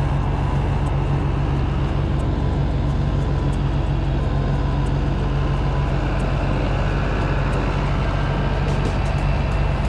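A heavy diesel engine running steadily at a constant speed, with a deep, even hum.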